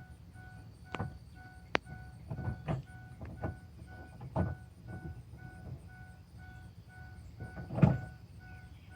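A steady, rapidly repeating electronic beep, like a warning chime, sounds throughout. Scattered clicks and metallic knocks from tools on the battery terminals come through it, with a sharp click a little under two seconds in and the loudest knock near the end.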